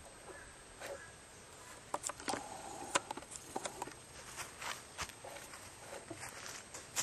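Footsteps and rustling through dry leaves and brush: an irregular string of short crunches and clicks.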